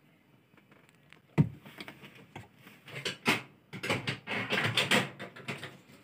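Hand work on a washing machine's gearbox and belt tensioner assembly: a sharp knock about a second and a half in, then a run of irregular clicks and knocks as parts are handled and fitted.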